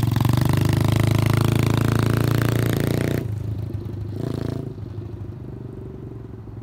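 Apollo X16 125cc four-stroke single-cylinder pit bike engine under throttle as the bike rides off. It is loud for about three seconds, then drops away, with a short burst of throttle about four seconds in, and fades as the bike moves off.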